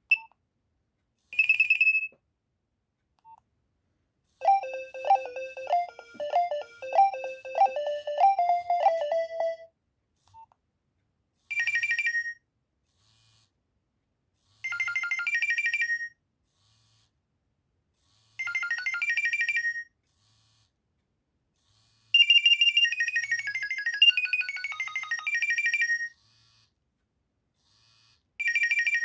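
Nokia 2300 mobile phone ringtones and alert tones played one after another: short electronic beeping melodies separated by silent pauses, including a tune of about five seconds and, later, a longer falling run of notes.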